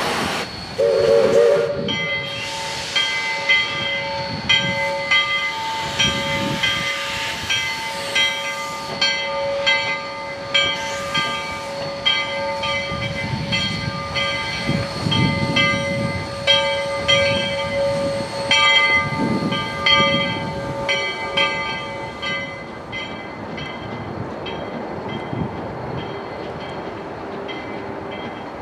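Narrow-gauge steam locomotive No. 40 gives a short whistle toot, then its bell rings steadily at about two strokes a second as the engine moves slowly with soft exhaust puffs. The bell stops about 22 seconds in.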